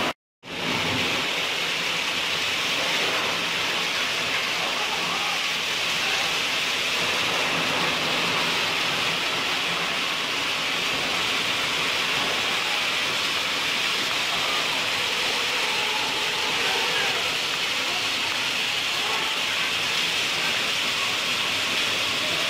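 Clay-crushing machines running under load with a steady, even noise, fed with broken dried clay. The sound drops out briefly just after the start.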